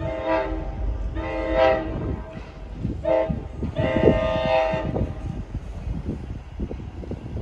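Horn of the approaching NJ Transit GP40-2 diesel locomotive, sounded in four blasts with the last one the longest. After the horn stops, the low rumble of the oncoming train continues underneath.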